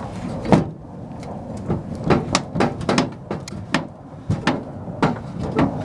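The dry, stiff steel piano hinge of a 1942 steel tool chest creaking and clicking in a run of short irregular ticks as the lid is moved, with a few sharper metal knocks; the hinge is unoiled and binding.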